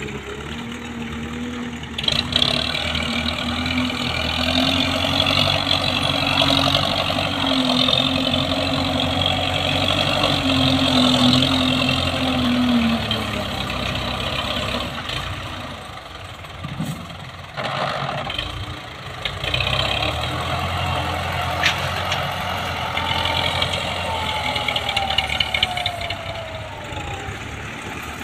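Belarus tractor's diesel engine working under load as its front blade pushes earth. The engine picks up sharply about two seconds in and holds a steady note, eases off past the middle, then works again, with a falling note near the end.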